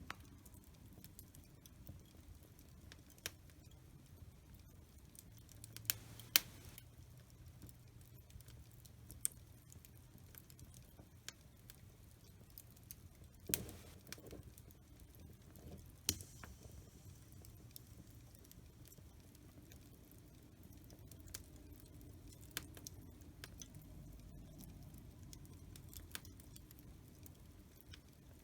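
Wood fire in a fireplace crackling: irregular sharp snaps and pops over a faint, steady low rustle of the flames, the loudest pops about six, thirteen and sixteen seconds in.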